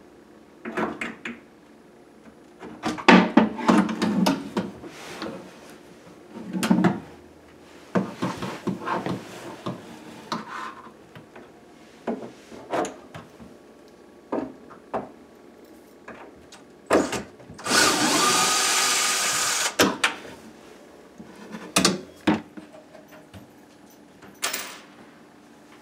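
Cordless DeWalt drill-driver taking screws out of the underside of a countertop: short spurts and one steadier run of about two seconds past the middle, among repeated knocks and clatter of the tool against the cabinet frame.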